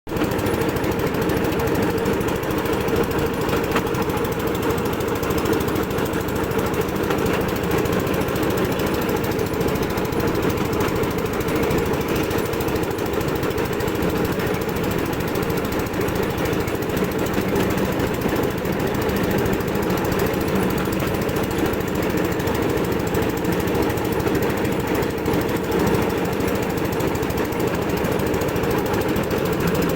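A small engine running steadily with a rapid, unchanging rattle.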